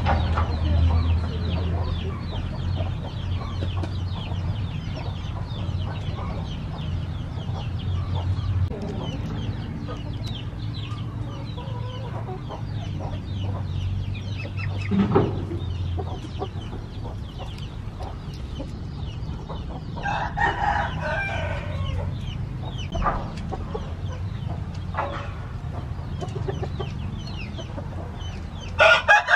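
Chickens clucking, with a rooster crowing once about two-thirds of the way through and again at the very end, over a low steady hum in the first half.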